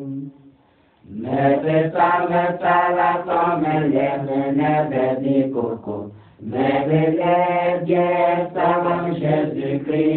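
Chanted singing in long, held notes, in two phrases with a brief break about six seconds in.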